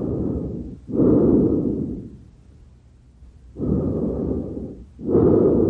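Recorded normal tracheal breath sounds, the breath sound heard over the trachea at the front of the neck. There are two full breaths, each an inhalation followed straight away by a louder exhalation, with a short pause between the breaths.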